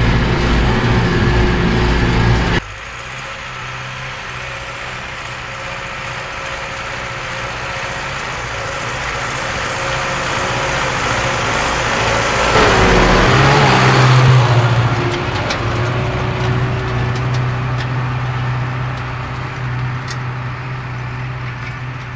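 Zetor Forterra 115 tractor's turbocharged diesel engine working steadily under load while pulling a cultivator across the field. It is loud for about the first two and a half seconds, then drops suddenly, grows as the tractor comes closer, is loudest as it passes about thirteen seconds in, and fades as it moves away.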